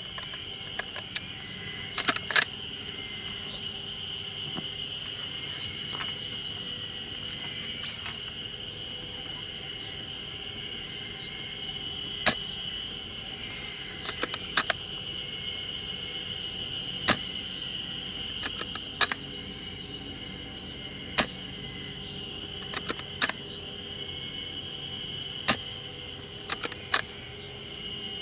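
Scoped airsoft rifle being fired at distant targets: a dozen or so sharp clicks and pops spread through, some coming in quick pairs or clusters. Under them runs a steady high drone of insects.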